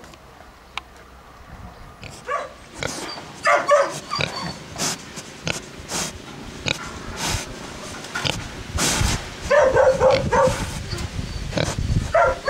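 Domestic pig grunting and snorting in a run of short bursts that starts about two seconds in.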